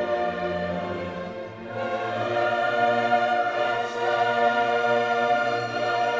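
Orchestral music with a choir holding long chords, growing louder about two seconds in.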